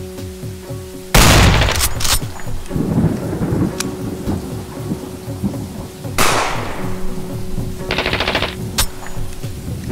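Thunderstorm: steady rain with a loud crash of thunder about a second in and another near the middle, over a steady low drone. Near the end comes a short rattle of rapid gunfire.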